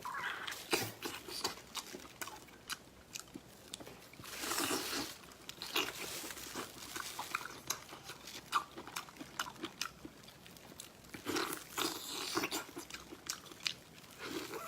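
A person chewing food with crunching bites, in irregular crackles and clicks.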